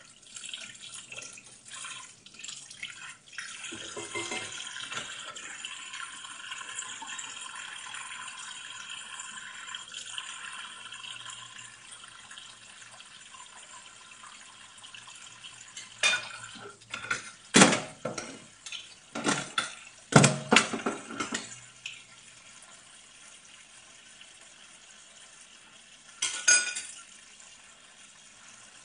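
Kitchen tap running into a sink as dishes are washed by hand. Then a run of sharp clatters of dishes and cutlery knocking together in the sink about halfway through, and one more clatter a few seconds later.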